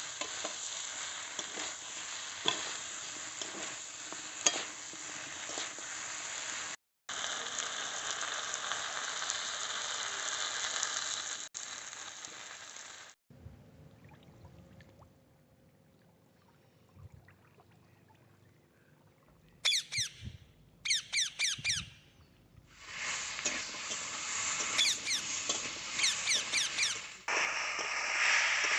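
Chicken frying and sizzling in hot oil, with scattered clinks of stirring. About thirteen seconds in the sizzle drops away for a quiet stretch, in which two quick runs of high chirps are heard, then it resumes.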